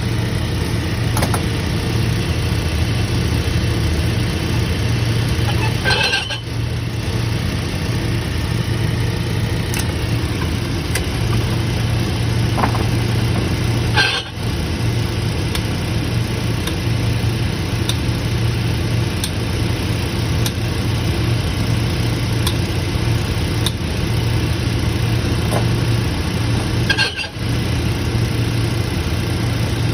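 Shoe-repair shop machinery running: a steady electric motor hum, with a few light clicks and taps over it.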